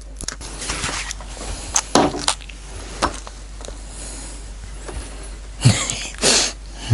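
Rustling and light clicks of hands working plumbing flax and threaded fittings, with two louder swishes near the end, over a steady low hum.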